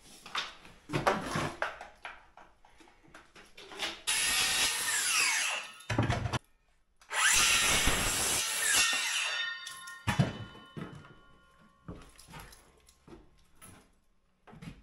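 DeWalt circular saw making two cuts of about two seconds each through softwood door-stop timber, the blade whining down after the second cut. Light knocks and clicks of timber and tools being handled come before and after.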